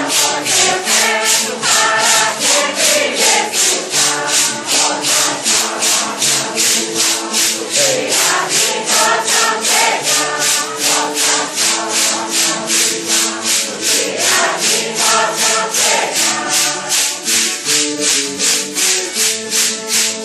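Group of voices singing a Santo Daime hymn in unison, accompanied by maracas shaken in a steady beat of about three shakes a second.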